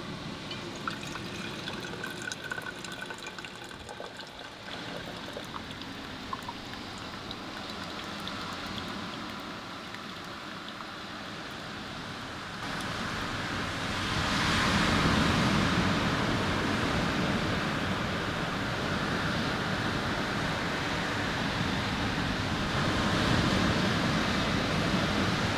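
Water poured from a small pot into a stainless pour-over coffee dripper, with small metallic clicks. About halfway through, surf washing onto a beach takes over, swelling louder in slow surges.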